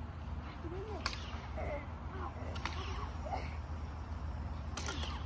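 Two lightsaber blades clashing in a duel: sharp cracks about a second in, again about two and a half seconds in, and a quick pair near the end. Short gliding tones sound between the hits.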